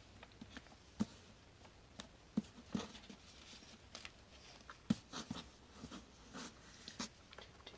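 Scattered light taps and clicks with soft rustling as items and packaging are handled in a cardboard subscription box.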